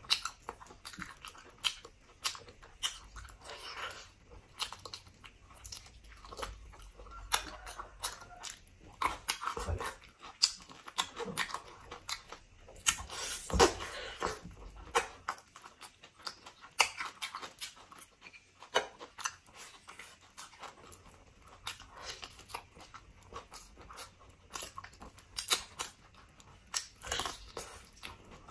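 Close-miked chewing and biting of braised pork leg eaten by hand: wet smacking and sticky mouth sounds with many sharp, irregular clicks, loudest around the middle.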